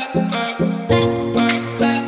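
Background music on a plucked string instrument, notes picked evenly at about four a second; deep sustained bass notes join about a second in.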